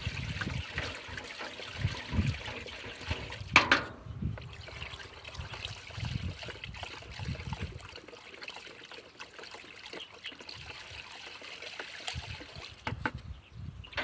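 Liquid sloshing and trickling as a stick stirs a water-based plant-treatment mix in a metal watering can, with soft knocks of the stick against the can. A brief sharp sound about three and a half seconds in is the loudest moment.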